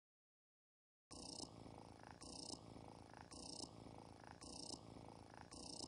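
Cat-like purring from a cuddling cartoon pony, starting about a second in and going in an even rhythm of about one purr cycle per second.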